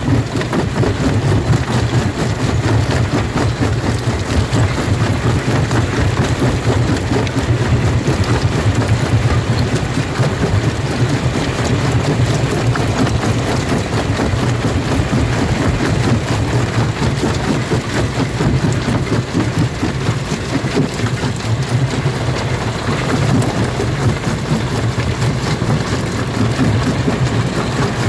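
Jaw rock crusher running and breaking stone: a steady low drone from the machine under a dense, continuous crackling and grinding of rock.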